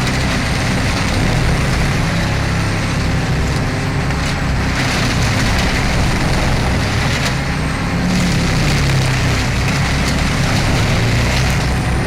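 Engine-driven wood chipper running under load, chewing through wood with a steady dense noise over an engine drone. The engine note rises and falls a little about two-thirds of the way through.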